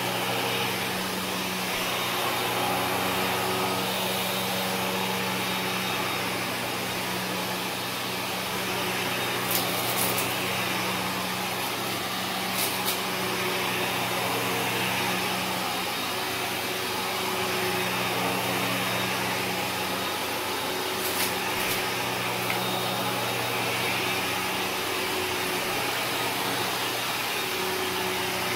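Kenmore upright vacuum cleaner running steadily while pushed back and forth over carpet, its rush of air swelling and easing with each stroke. A few sharp crunches of grit being sucked up crackle through it, around ten, thirteen and twenty-one seconds in.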